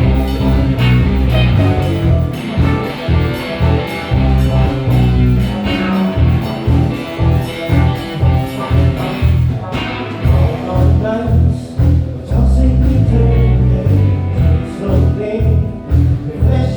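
Live band playing, with a heavy pulsing bass line and drums under keyboard and lead parts.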